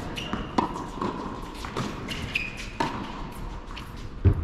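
Tennis rally on an indoor hard court: a series of sharp ball strikes and bounces about a second apart, with a few short sneaker squeaks, echoing in the large hall. A heavier low thump comes near the end.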